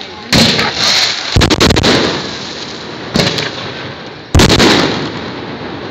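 Aerial firework shells bursting in a series of loud bangs: one about a third of a second in, a cluster around a second and a half, another around three seconds and the loudest just past four seconds, each dying away over a second or so.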